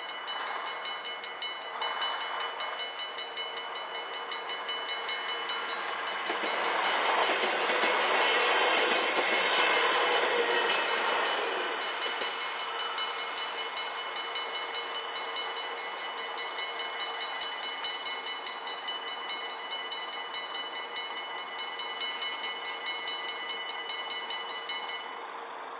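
Dutch level-crossing warning bells ringing rapidly and evenly while an NS Sprinter electric train passes. The train's rumble is loudest for several seconds in the middle. The bells stop near the end as the barriers rise.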